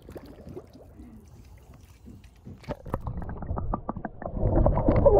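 Muffled water noise picked up by a camera that goes underwater in a swimming pool on a vacuum pole. It is quiet at first, then a quick run of clicks and knocks about two and a half seconds in, swelling into a louder muffled rumble near the end.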